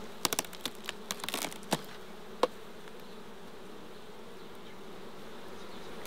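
Honeybees buzzing steadily over an opened hive. In the first couple of seconds, a run of sharp clicks and knocks as the queen excluder is worked loose from the box.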